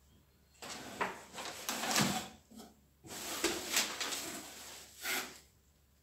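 Clothes rustling as they are handled and pulled out of a cardboard box of garments and packing: two long stretches of rustling, the first starting about half a second in, the second about three seconds in and ending a little after five seconds.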